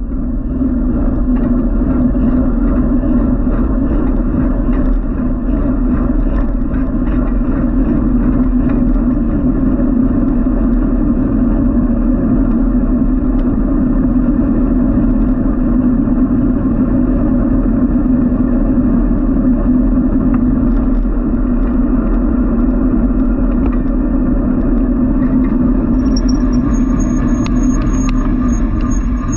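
Steady rush of wind and road noise while riding along a city bike lane, with passing motor traffic. Near the end a high, evenly repeated ticking starts up.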